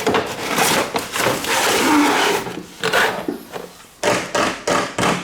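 A run of close-up knocks, clicks and rustling, as from handling plastic RC toy vehicles and their packaging.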